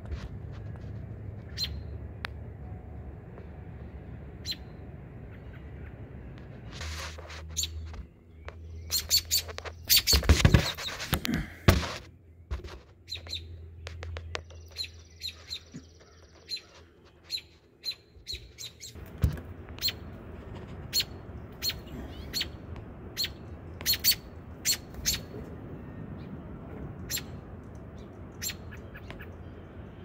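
Nestlings in a nest peeping in short, high chirps scattered through the stretch, with a cluster of loud thumps about ten to twelve seconds in.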